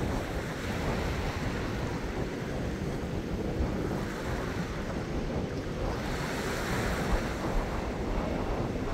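Small ocean waves lapping and washing over a seaweed-covered rock reef, with wind rumbling on the microphone. A wave washes in more strongly about six seconds in.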